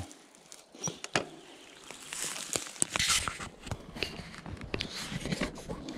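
Handling noise of an action camera: rustling and scraping as fingers and clothing rub close to the microphone, with two sharp clicks about a second in.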